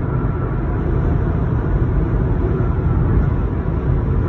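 Steady wind and road noise heard inside a moving Mazda CX-5, with the annoying wind noise that the owner traces to the front windshield.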